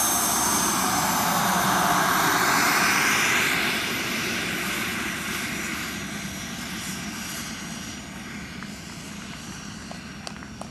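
Radio-controlled model jet's miniature turbine engine running with a high whine, loudest for the first few seconds as the jet touches down, then quieter as it rolls out on the grass.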